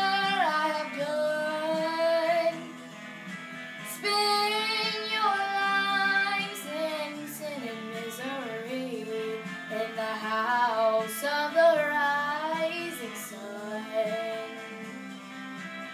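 A young girl singing without clear words: long held notes and wavering vocal runs, with a guitar accompaniment faintly behind.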